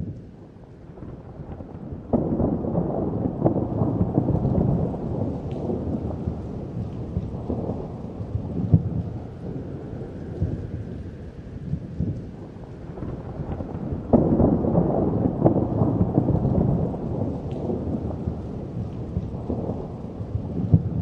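Rushing, rumbling noise of a fishing boat's churning wake and engine at the open stern hatch while longline pays out. It swells about two seconds in and again midway through.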